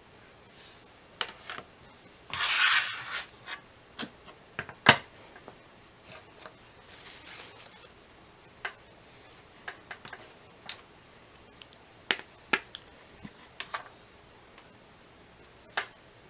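Small objects being handled on a work surface: scattered sharp clicks and taps, with a short rubbing rustle about two seconds in and fainter rustles elsewhere.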